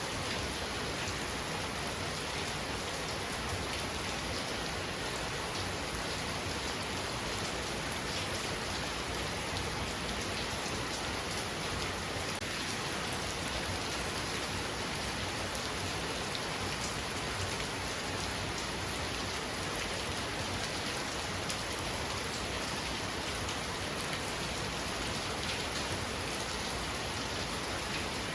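Heavy rain falling steadily: a dense, even hiss with fine scattered drop ticks that doesn't change throughout.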